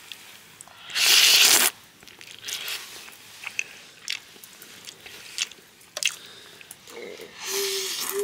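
Someone eating close to the microphone, most likely the noodle dinner: chewing with scattered crunches and clicks, and a loud rushing noise about a second in. Near the end come another noisy stretch and a short low hummed tone.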